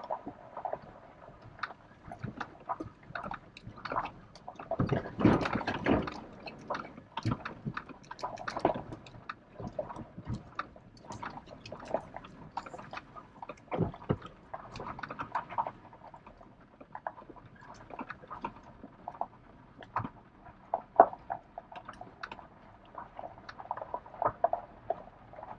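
Irregular clicks, knocks and rattles from inside a Nissan Frontier 4x4 pickup's cab as it crawls over a rough dirt-and-gravel trail, with tyres crunching on the stones. There is a louder stretch of rattling about five seconds in.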